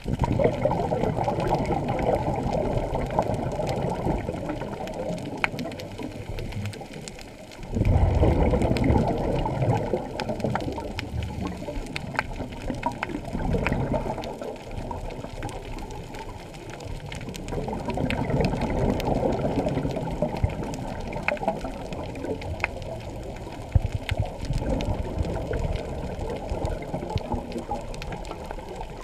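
Scuba diver's exhaled air bubbling out of a regulator, heard underwater: a muffled bubbling rush that swells and fades every few seconds with the breathing, with scattered sharp clicks between.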